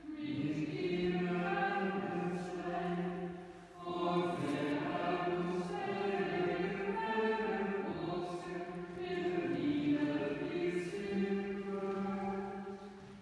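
Dominican friars chanting the Vespers office, a group of men's voices singing together in phrases of a few seconds with short breaks between, ending just before the close.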